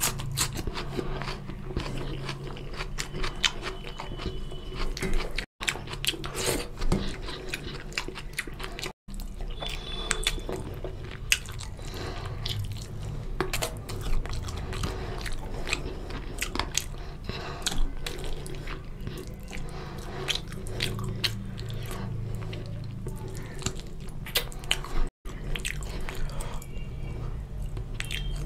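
Close-miked chewing and biting of a meal of chicken curry and rice eaten by hand, with crunching bites of raw onion. The sound drops out briefly three times.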